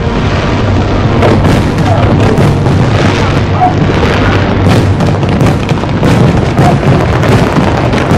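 Fireworks going off in quick succession: many overlapping bangs and crackles with no break, over a steady low rumble.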